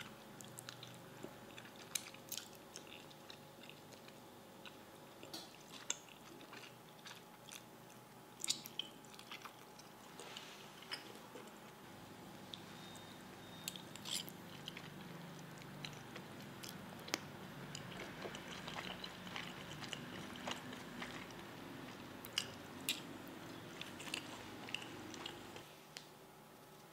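Close-miked chewing and eating of wide hand-pulled biang biang noodles, with scattered sharp clicks and crackles from the chopsticks and the sauced noodles.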